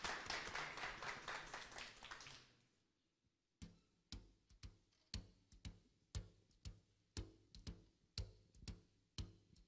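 Studio audience applause dying away, then after a short silence a soft, steady drum beat of about two strokes a second opens a song's intro.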